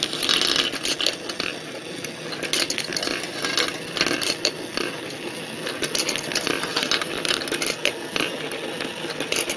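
Small wooden marble machine running: steel balls rolling and clicking on bent-wire tracks and wood while its mechanism ticks, with many irregular clicks throughout.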